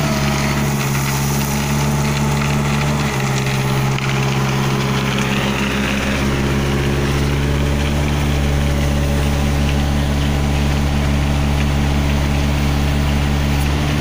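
Diesel engine of a Schwing Stetter SLM 2200 self-loading concrete mixer running steadily, its note shifting about three seconds in.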